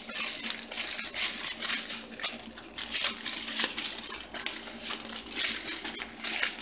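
Small clear plastic bags of round diamond-painting drills crinkling as they are handled and shaken, with the little drills rattling inside: a quick, irregular run of crackles and clicks.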